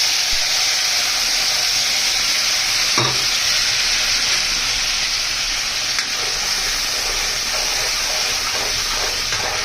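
Turmeric spice paste sizzling steadily in hot oil in a pan, stirred with a spatula.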